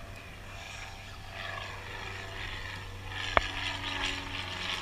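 A steady, even-pitched engine drone, with one sharp click about three and a half seconds in.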